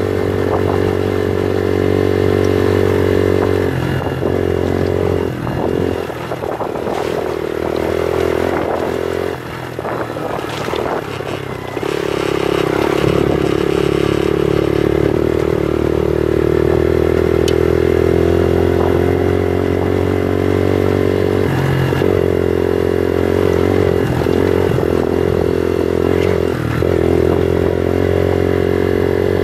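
Bullit Hero 125 motorcycle's 125cc engine running under way over a rough gravel track. Between about four and eleven seconds in, the engine note wavers and breaks up among rattles and knocks. From about twelve seconds in, it holds steady and slowly rises in pitch.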